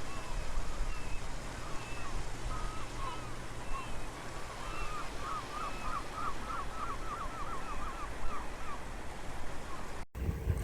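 Sea surf washing steadily on the shore, with birds calling over it in short, curving notes, including a quick run of about a dozen notes in the middle. Just before the end the sound cuts abruptly to wind buffeting the microphone.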